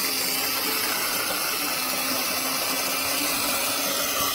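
A machine running steadily in the background: a constant low hum under an even hiss.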